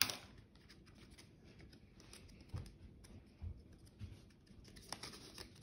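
Faint rustle of a folded paper puppet being handled and worked onto a hand, with a few soft taps. One of the taps, right at the start, is a marker being set down on the table.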